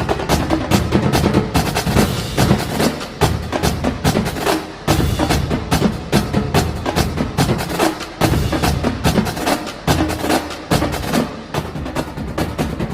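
Percussion-driven music with a fast, steady beat of sharp, clicky hits.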